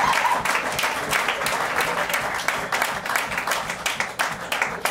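Small audience applauding, with a whoop ending just at the start. The clapping slowly thins out into separate claps.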